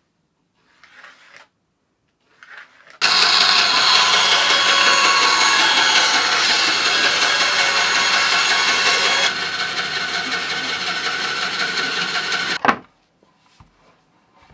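Woodworking power tool cutting a wooden guitar body blank. It starts abruptly, runs loud and steady for about ten seconds, drops a little in level partway through, and cuts off suddenly, taking material off the blank. Faint handling sounds come before it.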